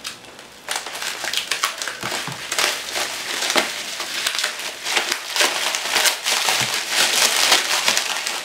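Plastic packaging and bubble wrap crinkling and crackling as it is cut and pulled open by hand, a dense run of small crackles that starts about a second in.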